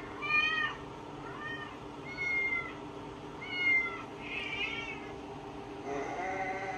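Cats meowing, played through a TV speaker: about six short, arching meows, roughly one a second.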